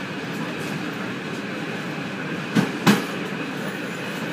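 Train running along the track, heard from inside its rear cab: a steady rolling rumble, with a double clack of the wheels on the track about two and a half seconds in.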